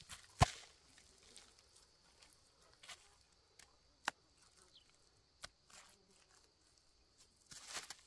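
A wet lump of mud slapped down at the wooden brick mold with a single sharp thud about half a second in. Then sparse small taps and soft rustling as hands work the mud and feet shift on a plastic sheet, with a longer rustle near the end.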